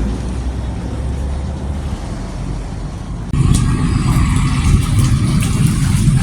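Road traffic: motor vehicles running with a steady low rumble, which jumps abruptly louder about halfway through, with a few light clicks after.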